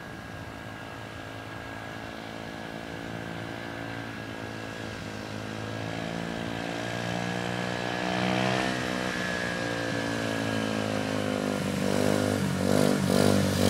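Small 70cc Dirt Runner pit bike engine approaching and growing steadily louder. Its revs climb to a peak about eight and a half seconds in, then ease back.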